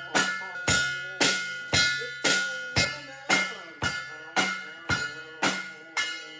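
A drum struck in a steady, even beat, about two hits a second, each hit ringing out and dying away before the next, like a drum being sound-checked.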